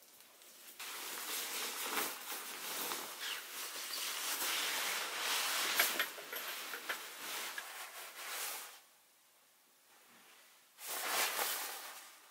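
Close rustling and handling noise, full of small clicks and scrapes, lasting most of eight seconds, then after a short pause a second, briefer burst.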